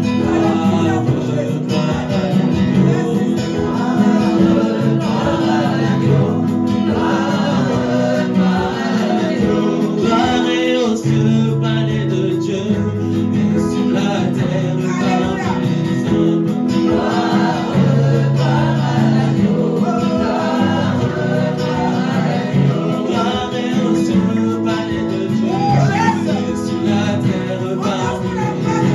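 Live gospel worship song: singers on microphones with an electronic keyboard playing sustained chords underneath.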